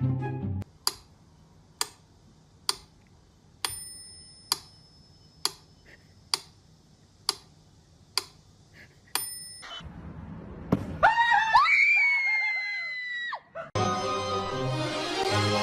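Sharp clicks, about one a second, two of them with a brief bell-like ring. Then a high, wavering scream lasting about three seconds, and music comes back in.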